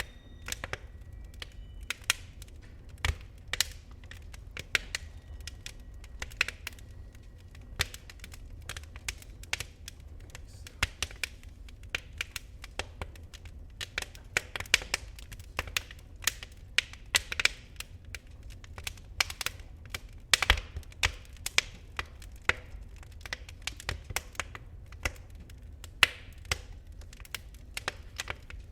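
Wood fire in a fireplace crackling: irregular sharp pops and snaps, a few louder than the rest, over a low steady rumble.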